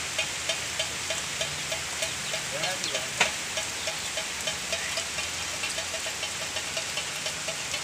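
Heavy rain falling on roofs and bamboo leaves, a dense hiss full of drop patter. An even ticking runs through it about three times a second, with one sharper knock about three seconds in.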